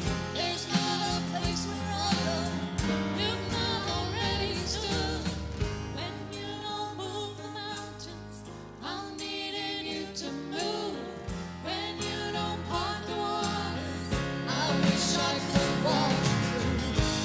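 A worship song performed with singing over a steady instrumental accompaniment.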